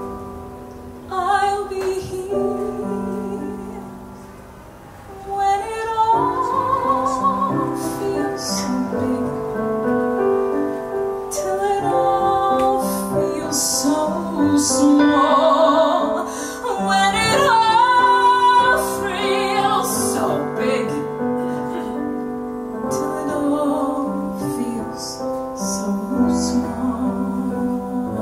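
Female vocalist singing a slow show-tune ballad with vibrato on long held notes, accompanied by a stage piano. The song swells to its loudest about halfway through, then eases off.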